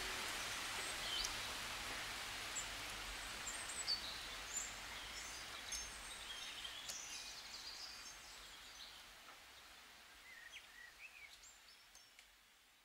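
Outdoor ambience: a steady hiss with scattered short bird chirps, fading out steadily towards silence.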